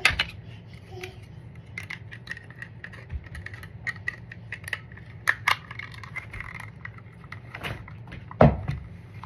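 Small plastic clicks and taps from the jaw parts of a reach-grabber tool being handled and fitted by hand, with a louder knock at the start and another, the loudest, near the end.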